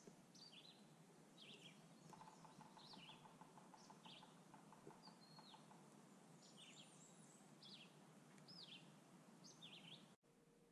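Faint songbirds chirping in the woods, several short calls sweeping up and down in pitch, with a faint low trill a couple of seconds in.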